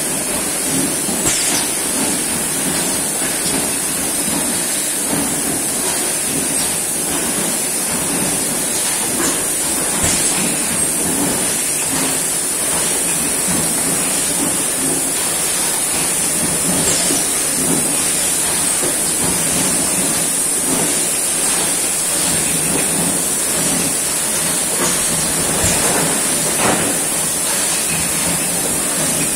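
Automatic multi-nozzle juice filling machine running as its nozzles fill plastic bottles: a steady hiss with scattered clicks and knocks.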